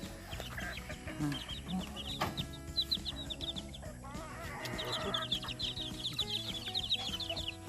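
Baby chicks peeping in a busy chorus of short, high, falling chirps, with lower chicken clucks underneath and one longer chicken call about four seconds in.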